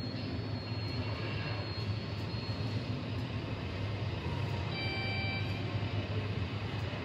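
Steady low hum under a constant background noise, with a brief high electronic-sounding tone of several pitches about five seconds in.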